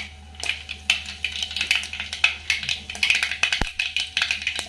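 Mustard seeds popping and crackling in hot oil in an aluminium pot as they are tempered. The pops come as rapid, irregular sharp clicks and grow busier through the second half. This spluttering is the sign that the oil is hot enough and the seeds are ready for the cumin.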